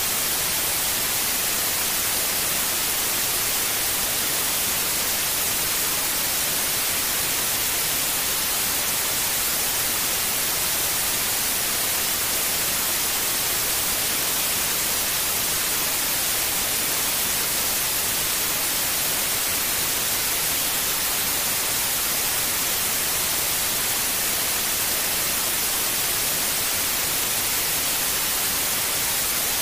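Steady white noise: an even, unchanging hiss, brightest in the high treble.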